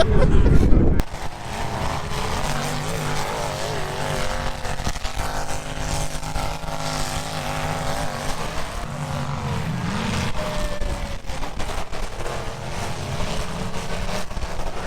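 Demolition derby cars running in the arena, several engines revving and droning together, with pitch rising and falling as they accelerate. A loud low rumble cuts off about a second in.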